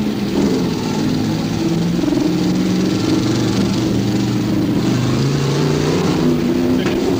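Several race car engines running together at speed around the oval, their pitches rising and falling and overlapping as the cars lap.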